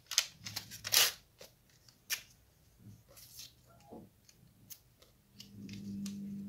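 Paper being torn by hand into small pieces: a string of short ripping sounds, the loudest about a second in. A low steady hum starts about five seconds in.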